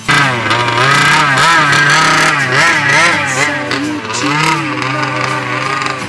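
The small two-stroke petrol engine of a large-scale RC buggy, running hard and loud. It cuts in suddenly, and its pitch wavers up and down as the throttle is worked.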